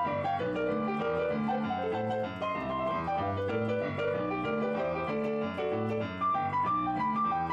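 Piano music: a melody of single notes over a lower bass accompaniment.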